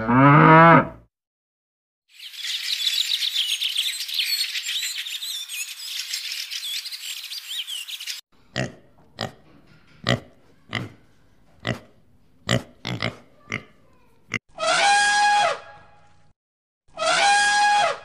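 A cow's moo ends in the first second, followed by about six seconds of dense high chirping, then a string of about a dozen sharp clicks. Near the end an African elephant trumpets twice, each call lasting over a second.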